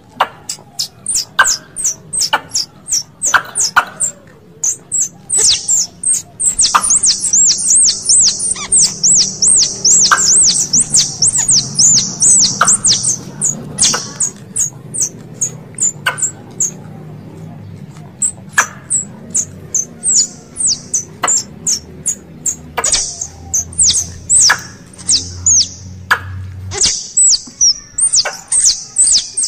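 Squirrel calls played as a hunting lure: sharp, high-pitched chirps and clicks at an uneven pace, breaking into fast chattering runs for several seconds at a time.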